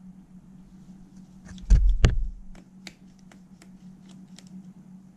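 Screwdriver working a screw on the circuit board of a cassette deck's tape mechanism, over a steady low hum: a loud knock of handling about two seconds in, then a run of small sharp clicks, about three a second.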